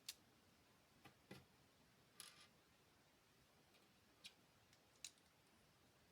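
Light clicks of small plastic LEGO pieces being handled and pressed together, about six scattered at irregular intervals.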